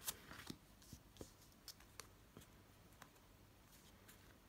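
Faint handling of oracle cards: soft taps and light clicks as cards are held and laid down on a cloth-covered table, a dozen or so scattered through an otherwise near-silent room.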